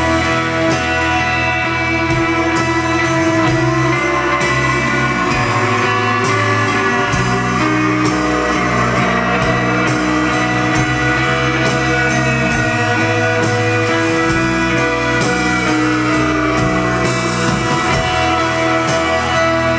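Live rock band playing loudly: electric guitars holding sustained notes over bass and drums. In the last few seconds one line slides steadily down in pitch.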